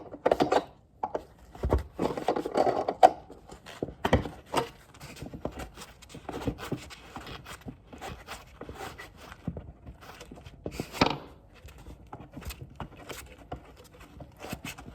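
Irregular clicks, knocks and short scrapes of an Allen key working a stripped Allen screw in a wooden dining table, with the loudest knocks about two, three, four and eleven seconds in.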